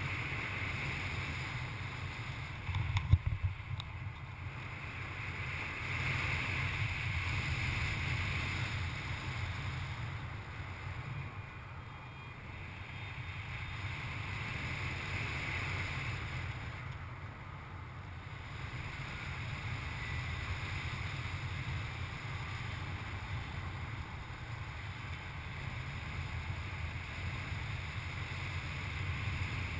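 Wind rushing over an action camera's microphone in paraglider flight: a steady low rumble with hiss that swells and eases every few seconds. A short burst of knocks comes about three seconds in.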